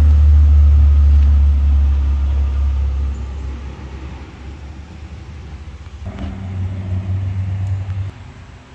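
Low engine rumble of passing road traffic, loud at first and fading away after about three seconds. A second vehicle's rumble swells from about six seconds in and cuts off near the end.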